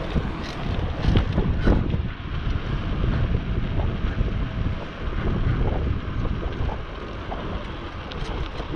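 Wind buffeting the microphone of a camera carried on a moving bicycle, an uneven low rumble that swells and eases.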